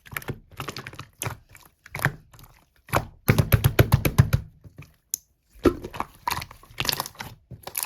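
Slime being pressed and squished by hand, making a run of wet clicking and popping crackles, thickest about three seconds in, with a short pause around the five-second mark.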